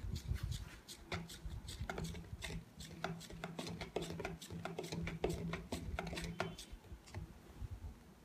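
Steel spoon stirring thick liquid handwash in a plastic cup, clicking and scraping against the cup's sides about three times a second. The mixture is an SLES base thickened by added salt solution. The stirring stops about a second and a half before the end as the spoon is lifted out.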